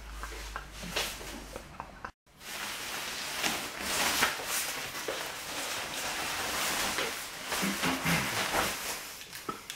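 Rustling of a nylon jacket being handled and pulled on close by, with scattered soft clicks and knocks. It is loudest about four seconds in and follows a short break about two seconds in.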